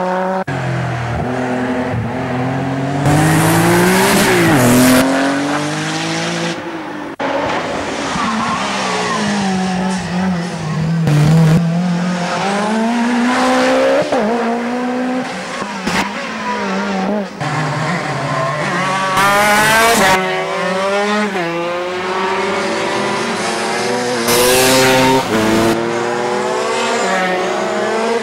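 Hill-climb race car engines revving hard as they accelerate past one after another, their pitch climbing and then dropping sharply at each gear change, with several short bursts of harsh noise. Near the end a racing kart's engine comes by.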